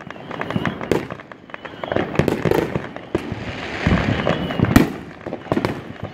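Fireworks going off: a rapid, irregular series of sharp bangs and pops, with a stretch of hissing crackle in the middle and the loudest bang near the end.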